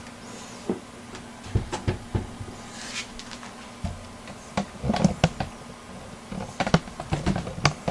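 Irregular clicks, knocks and light scrapes of a desktop computer's case parts being handled, coming in small clusters, with a brief rustle about three seconds in.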